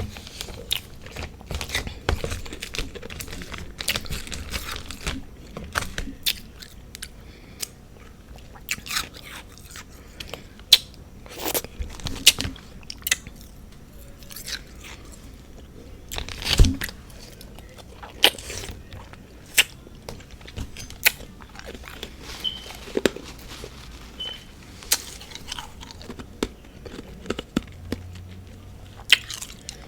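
Close-up crunching and chewing of soft freezer-frost ice with powdered sugar and whipped cream mixed in, a dense run of irregular crackly crunches with a few louder bites.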